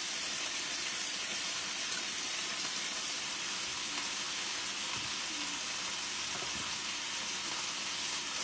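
Chicken frying in a pan of oil: a steady, even sizzle.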